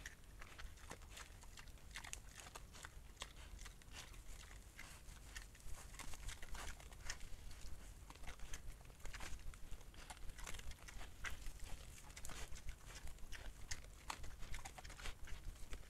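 Wild boars feeding: irregular crunching and crackling as they chew food scattered on the ground and nose through the litter, busier from about six seconds in.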